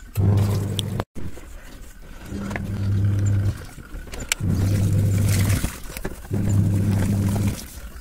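Semi-automatic Godrej washing machine's wash motor humming in four bursts of about a second each, with short pauses between them as the pulsator stops and reverses, churning foamy water and clothes in the wash tub.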